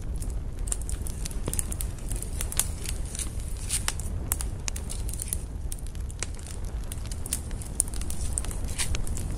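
Wood campfire burning, with frequent sharp, irregular crackles and pops of the logs over a steady low rumble.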